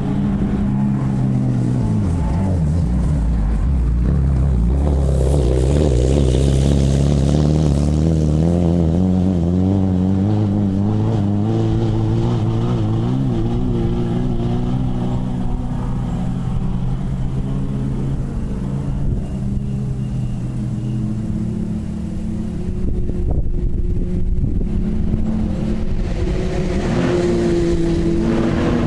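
Off-road racing buggy engine running hard: its pitch rises and falls with throttle and gear changes, with a fast wavering pitch partway through.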